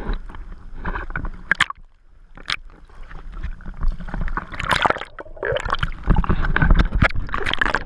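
Choppy sea water sloshing and splashing around a camera at the surface, in irregular bursts with a low rumble of water buffeting the housing, louder in the last few seconds.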